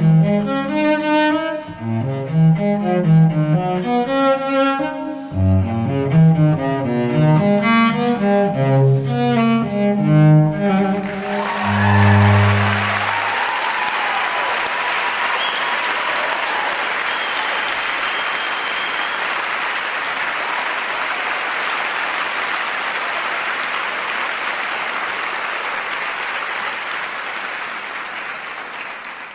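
Classical music with bowed strings prominent, ending on a low final note about twelve seconds in. Audience applause follows and fades out near the end.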